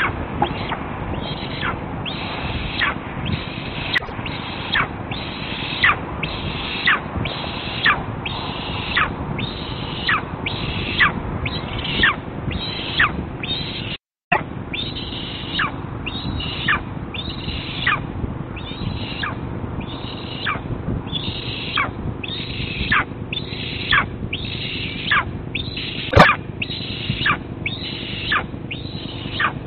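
Eastern imperial eagle calling over and over, about once a second, each call a short high note that drops in pitch. One call near the end is louder than the rest, and the sound cuts out for a moment about halfway through.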